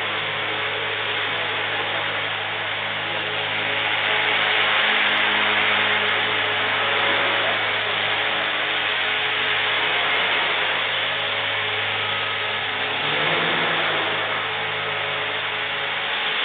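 Align T-Rex 450 Pro electric RC helicopter's motor and rotor running with a steady whine over a rushing hiss, swelling slightly about four seconds in.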